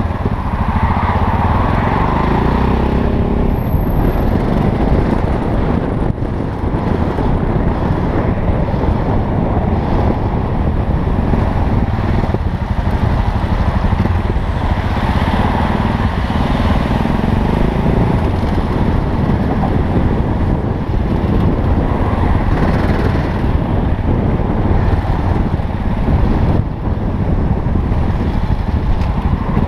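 Yamaha XT660Z Ténéré's 660 cc single-cylinder four-stroke engine running steadily at low speed, heard from the saddle together with road noise from the slow-moving traffic alongside.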